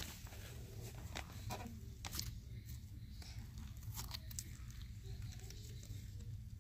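Soft white glue-and-borax slime being stretched and folded by hand, giving faint, irregular sticky clicks and small tearing crackles over a low steady hum.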